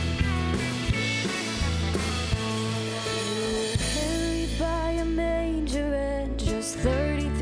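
Worship band playing a slow song with drums, guitar and bass. A wavering lead melody line comes in about halfway through.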